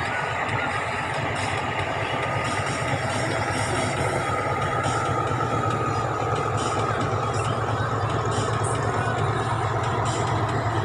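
Boat engine running steadily, a constant low drone with a faint higher whine over it.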